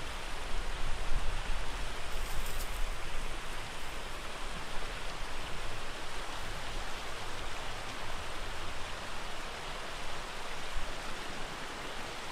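Steady rushing outdoor noise with a flickering low rumble underneath.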